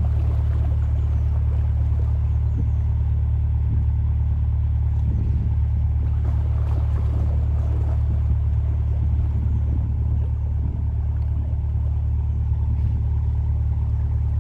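Narrowboat's diesel engine running steadily while cruising, an even low drone.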